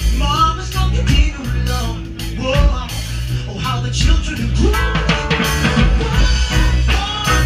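Live band playing a rock song on drum kit, keyboards and electric guitars.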